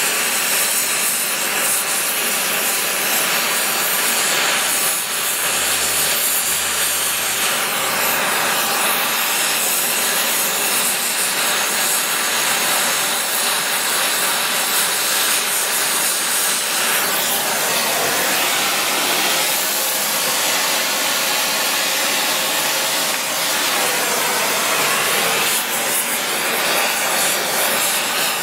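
Brazing torch flame hissing steadily as bronze filler rod is melted onto the workpiece.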